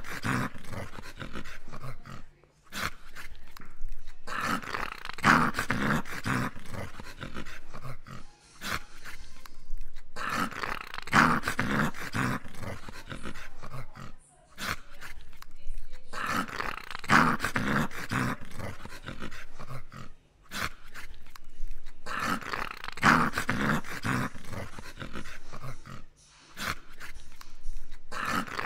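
English cocker spaniel snoring in its sleep: a long rasping breath that comes round about every six seconds, about five times, each followed by a brief pause.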